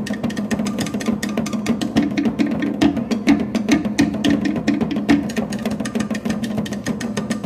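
Live Polynesian drum ensemble playing a fast, steady rhythm: rapid sharp wooden strokes over repeated deeper drum beats.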